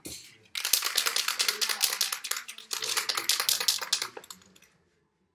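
Aerosol spray-paint can being shaken, its mixing ball rattling rapidly for about three and a half seconds before stopping.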